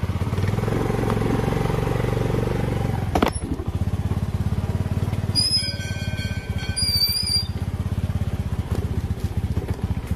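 Motor scooter engine running steadily as it is ridden. There is a sharp click about three seconds in, and a brief high-pitched tone with several pitches partway through.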